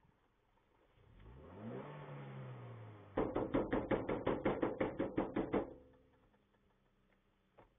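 Pickup truck's engine revving up and holding, then the truck's horn sounded in a rapid string of about fourteen short blasts, some six a second, for over two seconds: hooting to scare off an approaching elephant.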